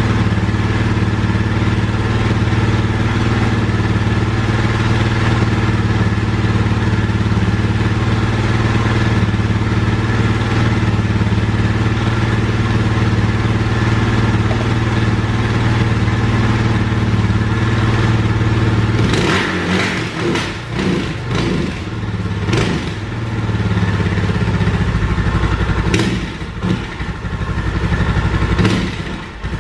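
Suzuki DR650's single-cylinder four-stroke engine idling steadily on its freshly rebuilt carburettor. About two-thirds of the way through, the steady running turns uneven, with several sharp knocks and clatter.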